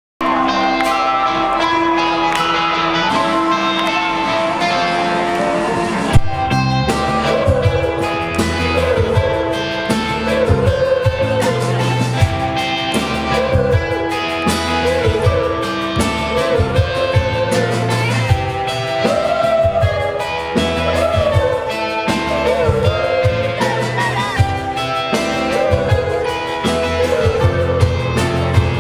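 Live rock band playing: sustained guitar chords alone at first, then drums and bass come in about six seconds in, with a male lead vocal singing over them.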